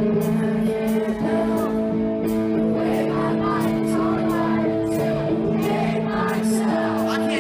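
Rock music played live: held chords with regular cymbal hits and a singing voice over them.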